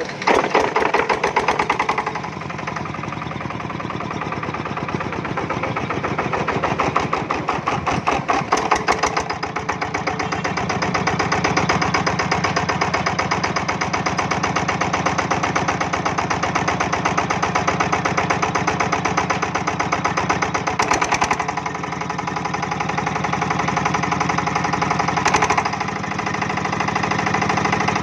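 Yanmar TF155 single-cylinder horizontal diesel engine running with its rapid firing knock. The level swells for a few seconds about a third of the way in and dips briefly about three-quarters through.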